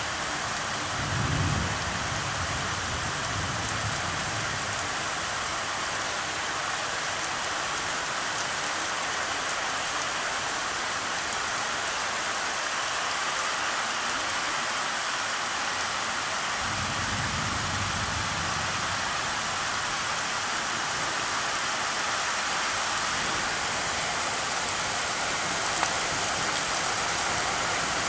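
Heavy rain pouring down steadily on a wet street, a constant hiss. A low rumble rises under it about a second in and again from about 17 to 20 seconds.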